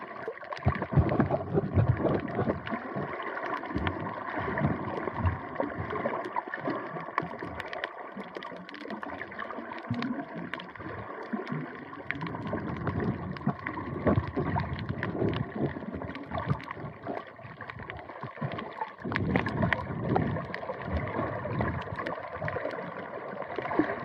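Water sloshing and gurgling, with irregular splashes and swells throughout.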